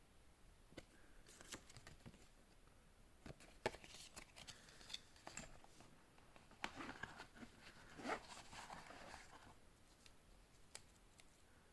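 Faint handling of packaging: scattered clicks and short bursts of rustling and crinkling, busiest in the middle.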